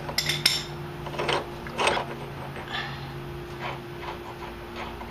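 Light metal clinks and taps of a steel socket and extension being pulled off a pitman arm nut and the loosened nut being handled, a handful of sharp clicks with the loudest about two seconds in.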